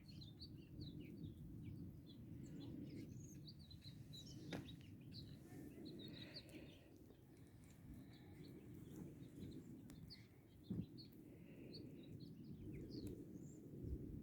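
Faint, scattered high chirps of small birds over a low steady outdoor hush, with a soft knock twice.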